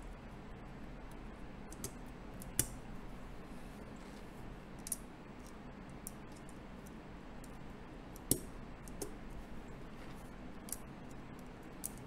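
Light, scattered clicks and taps of parts being handled and fitted on an aluminium keyboard plate by hand, about eight in all. The loudest comes about two and a half seconds in and another just past eight seconds.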